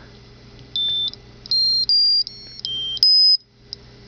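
Homemade PIC18 alarm clock's buzzer playing a short tune of high electronic beeps, about six notes stepping up and down in pitch. It stops about three and a half seconds in. This is the alarm tone being previewed in the clock's settings.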